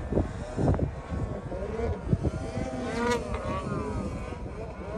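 Distant snowmobile engines revving under load as the sleds carve through deep powder. About three seconds in, an engine whine rises and falls in pitch.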